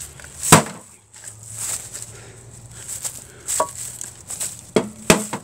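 Hatchet blows striking a CRT television: a series of sharp knocks, the loudest about half a second in, another after about three and a half seconds, and two close together near the end.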